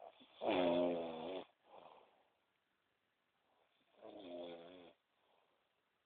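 A person snoring in deep sleep: two long, buzzing snores about three and a half seconds apart, the first louder, with a soft breath between them.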